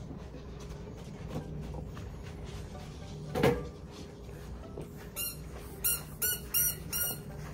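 Dog's squeaky toy ball squeaked in its mouth: about six quick, high squeaks in a row near the end. A single sharp knock about halfway through.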